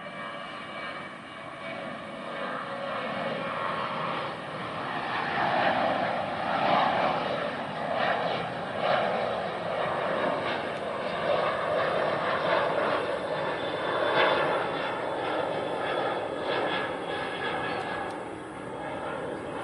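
Jet airliner's engines at climb power as it climbs away after takeoff: a rough, fluctuating engine noise that swells to its loudest around the middle and eases a little near the end.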